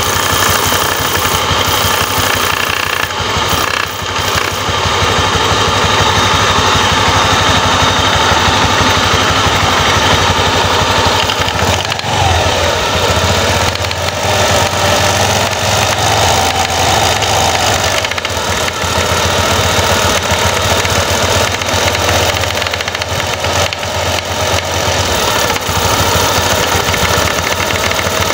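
Honda Vario scooter engine running with its CVT open and the clutch bell spinning while a sandpaper-covered wooden block is pressed against it, giving a steady engine note with a continuous grinding rub. The thick aftermarket clutch shoes are being lapped to sit flat in the bell to cure juddering on take-off. The pitch shifts for a few seconds about twelve seconds in.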